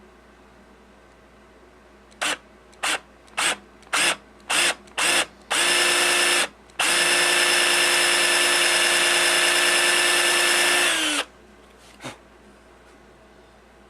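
Power drill with a flat-ended 5/16-inch bit, boring out an action camera's stripped tripod-thread hole to a set depth. The motor is pulsed in six short bursts, then run in two longer stretches; the second lasts about four seconds and winds down at the end.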